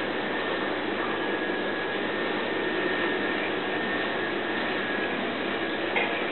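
Steady rushing noise with a thin, high, steady whine running through it, and a single light knock near the end.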